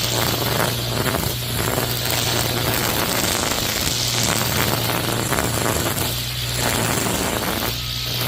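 Homemade battery-powered grass cutter running: an electric motor hum under a dense rough whirring, likely the spinning blade cutting grass, easing briefly twice about six and eight seconds in.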